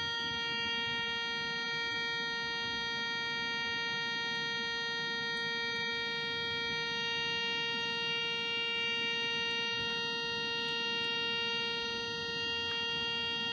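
A steady electronic buzz: one unchanging pitched tone with many overtones, over a low hiss.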